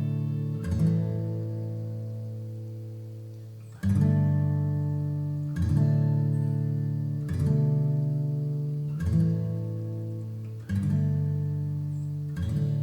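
Acoustic guitar background music: slow strummed chords, a new one about every two seconds, each ringing out.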